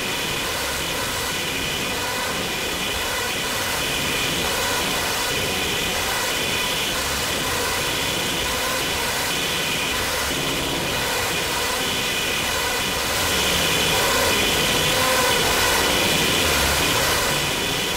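Intentional digital feedback loop in Ableton Live, run through a return track with VocalSynth 2, a frequency shifter and convolution reverb. It makes a dense, steady noisy drone with several held high tones, and swells a little louder for a few seconds near the end.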